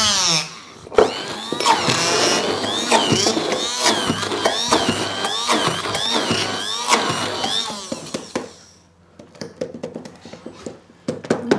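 Hand-held immersion blender running in a tall beaker of thick ravioli filling. It drops out briefly and restarts about a second in, and its pitch wavers up and down about twice a second as the blade is worked through the mixture. It stops about eight seconds in, followed by a few small clicks.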